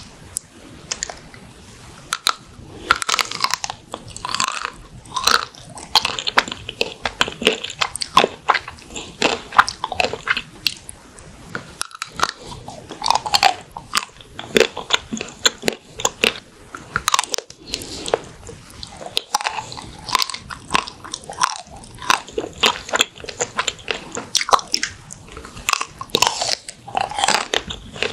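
Close-miked bites into a chocolate-coated ice cream bar: the hard chocolate shell with crunchy bits cracks and crunches in many sharp, irregular crackles, mixed with chewing.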